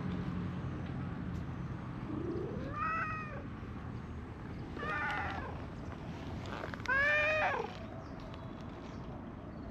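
Orange-and-white cat meowing three times while being petted, short arching calls about two seconds apart, the last one the loudest.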